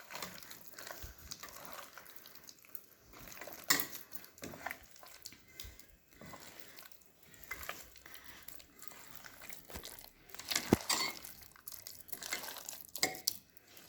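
Hands mixing raw chicken pieces in a wet marinade of egg, lemon juice and spice paste in a bowl: soft squelching with scattered clicks and knocks against the bowl, the sharpest about four seconds in and about eleven seconds in.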